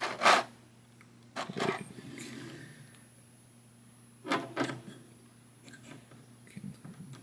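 Clicks and knocks of a plastic action figure being handled and posed, in a few short bursts: a sharp one right at the start, then others about a second and a half and four seconds in.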